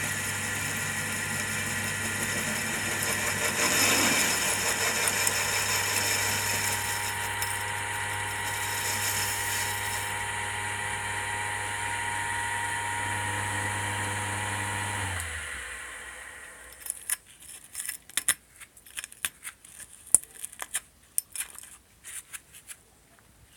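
Mini lathe running steadily while turning a metal pipe sleeve, with a high hiss that fades about ten seconds in. The motor is switched off and spins down about fifteen seconds in, followed by scattered light clicks and knocks.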